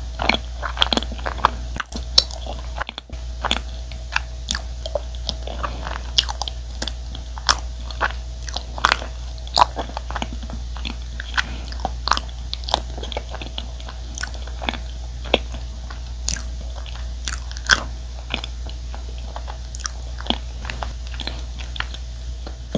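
Close-miked chewing of a soft, chewy cream-cheese-filled glutinous rice cake (chapssaltteok): sharp mouth clicks at irregular intervals, one or two a second, over a low steady hum.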